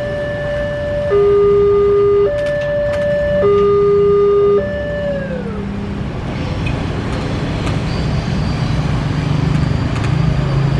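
Two-tone horn of an approaching railway track-inspection car, alternating a high and a low note of just over a second each. The last note sags in pitch as it stops about five and a half seconds in. Then the low rumble of the car passing close by.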